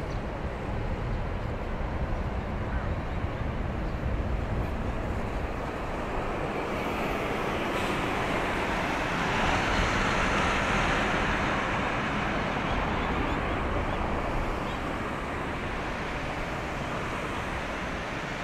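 Large car carrier passing close by: a steady low rumble with a rushing wash of water along the hull, swelling to its loudest about halfway through and easing off again.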